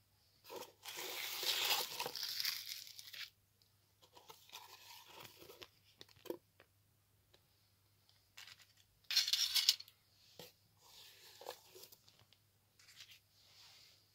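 Plastic bubble wrap and bags crinkling and rustling as they are pulled from a cardboard box and unwrapped, in several bursts, the loudest about a second in and about nine seconds in, with a few light knocks between.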